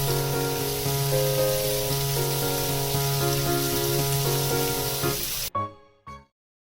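Soft piano background music over a loud, steady hiss, which cuts off suddenly near the end, leaving silence.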